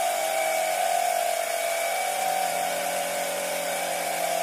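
Automatic electric tyre inflator's small compressor running with a steady hum while it pumps air into a flat bicycle tyre.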